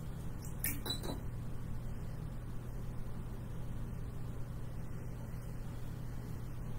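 Room tone: a steady low hum, with a few faint clicks about a second in.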